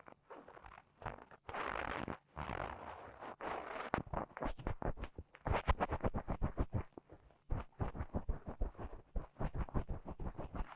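Dry cotton swab rubbed and scraped inside an ear for ASMR ear-cleaning, giving scratchy strokes. There are a few longer scrapes at first, then from about four seconds in a quick run of short strokes, several a second.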